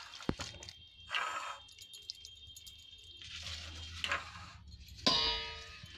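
Stainless-steel tiffin container knocking and scraping against a steel plate as mawa is tipped out of it, with a louder ringing clang of steel about five seconds in.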